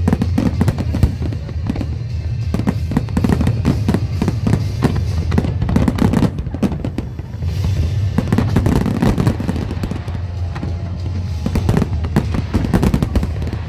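Fireworks display: a dense, continuous run of bangs and crackles from many shells bursting, with a brief lull about halfway through. Music plays underneath.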